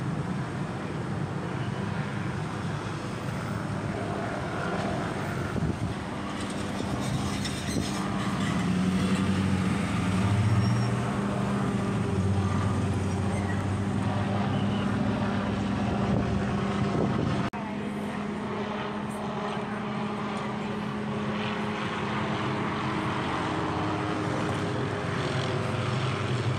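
Helicopter circling overhead, a steady drone whose pitch drifts slightly up and down as it moves, with a sudden small drop in level about two-thirds of the way through.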